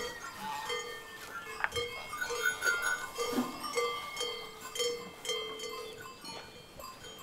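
Goat bells clinking and clanking over and over as a pen of goats moves about.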